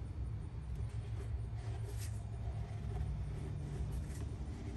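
Steady low rumble with a few faint short rustling sounds, about two and four seconds in.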